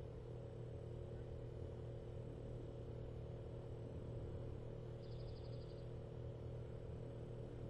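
A steady low hum, a drone with a few steady tones over it. About five seconds in comes a short, high, rapid ticking that lasts under a second.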